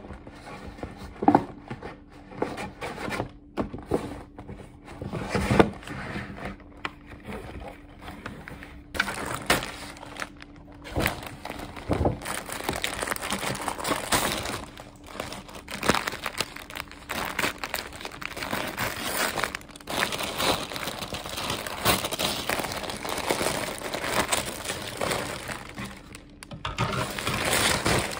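Paper shopping bag and tissue paper rustling and crinkling as hands unpack them. There are a few sharp knocks at first, then denser, continuous crinkling from about nine seconds in.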